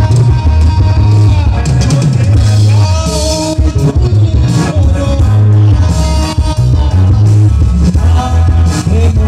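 Live rock band playing loud through PA speakers: electric guitars, bass and a drum kit driving a steady beat, with a male singer's voice carrying the melody.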